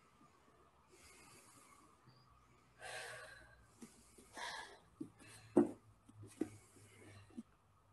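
Faint breathing at rest after a held yoga pose: a few slow, soft exhales a second or two apart. Several short soft knocks come in the second half, the loudest a little past halfway.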